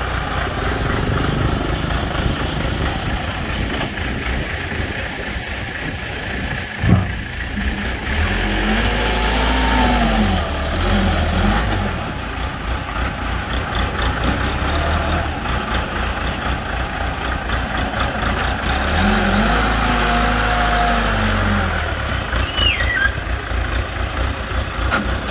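Small wheel loader's diesel engine running steadily, revving up and back down twice as it works the loaded bucket while scooping sand and lifting it to load a dump truck. A single sharp knock sounds about seven seconds in.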